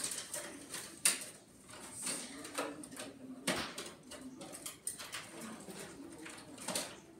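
Scattered sharp knocks and clicks, a second or more apart, of small objects being handled.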